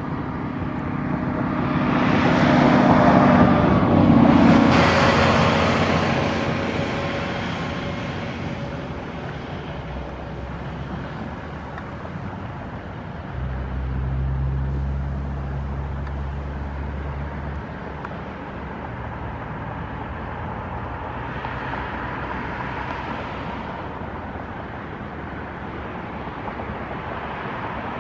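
Distant jet roar of an Antonov An-124's four turbofan engines at climb power as the aircraft climbs out. It swells to a peak a few seconds in, then slowly fades as the aircraft moves away.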